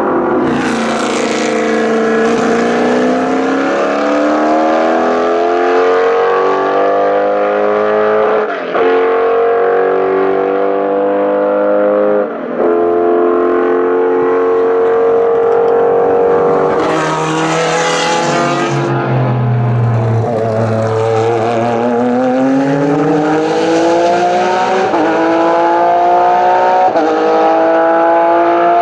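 Racing car engines accelerating hard through the gears, the pitch climbing with a brief drop at each upshift, twice in the first half. Past the midpoint the note falls, then climbs again through more upshifts near the end.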